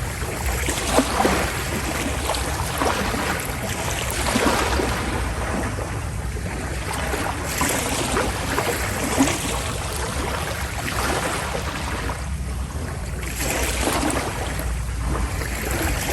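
Sea water rushing and splashing past a passenger ferry, swelling and easing every second or two over a steady low rumble from the moving ship.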